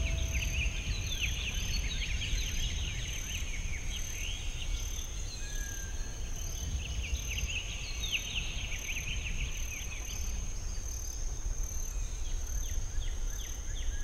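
Small songbirds twittering in quick flurries of short falling chirps, two bursts a few seconds apart, over a steady high-pitched tone and a low rumble.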